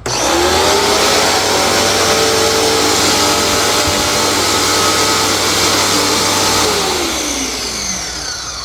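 Electric pressure washer's motor and pump starting abruptly, running steadily with a whine for about seven seconds, then switched off and winding down with a falling pitch. The first run of the unit, to get the air out of the pump and hose.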